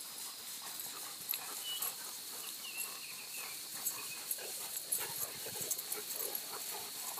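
Dogs running through tall grass: scattered rustling with a few faint, short dog sounds, over a steady faint high-pitched tone.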